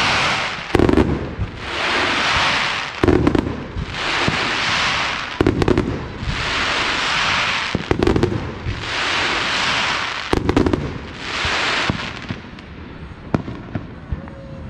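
Fireworks: about five bangs, two to three seconds apart, each followed by a second or so of steady hissing. A few smaller scattered pops come near the end.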